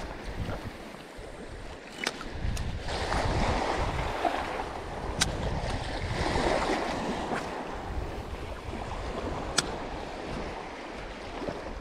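Small sea waves washing and splashing against the shore, swelling louder a few times, with wind rumbling on the microphone and a few sharp clicks.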